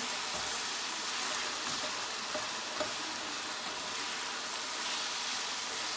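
Browned ground beef sizzling steadily in a hot skillet, freshly splashed with Worcestershire sauce, with a spatula stirring through it and a faint scrape now and then.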